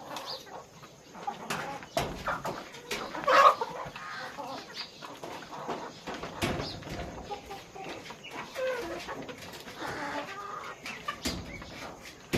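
A flock of farm chickens clucking and calling over one another, with a few sharp knocks among them.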